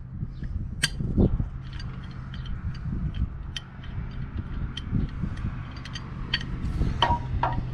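Scattered light metal clicks and taps from a large pipe wrench being handled, over a steady low hum.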